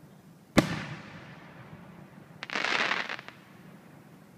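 Aerial firework shell bursting with one sharp bang about half a second in that echoes away, followed a couple of seconds later by a short hissing rush of about a second.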